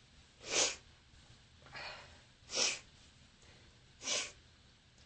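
Four short, quiet sniffs or snorting breaths through the nose, about a second apart, between sneezes during a sneezing fit brought on by bronchitis.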